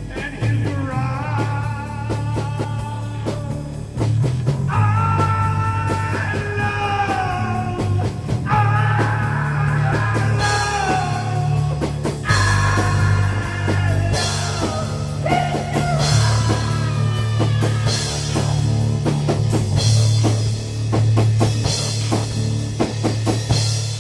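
Rock music with a drum kit, bass and guitar, playing at a steady beat.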